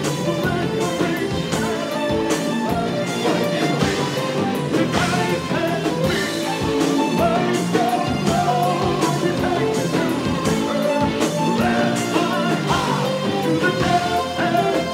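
Progressive metal band playing live: electric guitar, bass guitar and drum kit, with a vocalist singing into a microphone.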